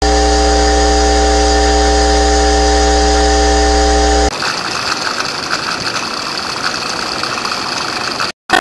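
Steady mechanical hum with a deep drone and several held tones, cut off abruptly about four seconds in. A rougher, fluttering machine noise follows, then breaks off just before the end.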